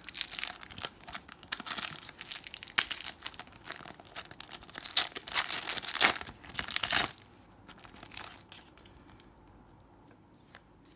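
Shiny foil wrapper of a Panini Adrenalyn XL trading-card pack crinkling and tearing as it is ripped open by hand. The crackling stops about seven seconds in.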